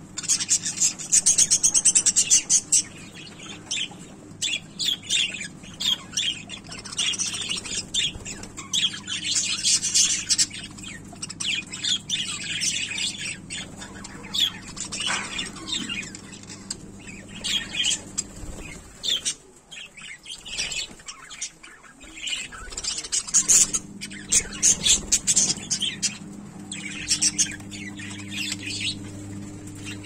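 A flock of budgerigars chattering, a dense stream of quick high chirps and squawks with a brief lull about two-thirds of the way through, over a steady low hum.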